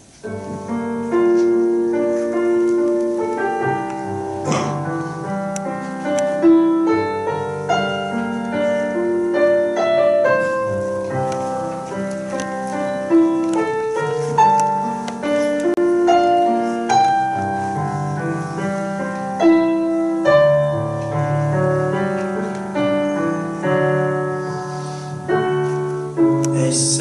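Piano playing a melody over lower chords, each note struck and left to ring; it begins about a second in.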